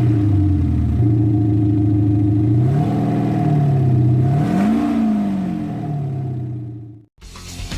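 Synthetic engine sound from a Kufatec Soundbooster Pro sound generator in a Smart fortwo 451 mhd: a steady idle note with one rev that rises and falls back about halfway through. The sound fades and cuts off near the end, and music starts just after.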